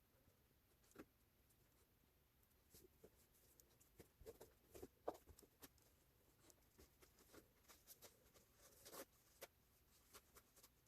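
Near silence with faint, scattered light clicks and taps of small parts being handled on a work surface, busiest about four to five seconds in and again near nine seconds.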